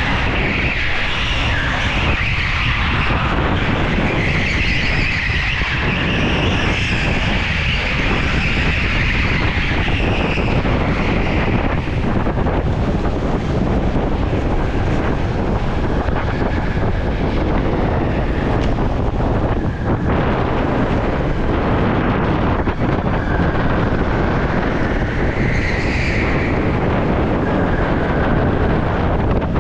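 Onboard sound of a go-kart at speed on an indoor track: wind buffeting the kart-mounted microphone over steady drivetrain and tyre noise. A high whine wavers with speed and settles lower about a third of the way through.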